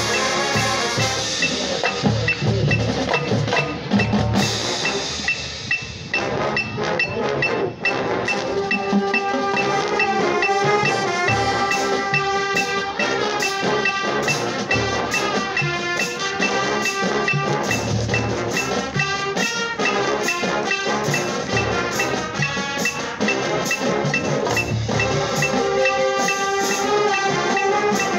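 Marching band playing: brass over a front ensemble of marimbas and xylophones, with drums keeping a steady beat of sharp hits. The music eases off briefly about six seconds in, then comes back in full.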